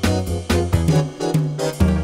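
Upbeat instrumental dance music with a steady beat and a bouncing bass line, an instrumental break between sung verses of an Odessa song.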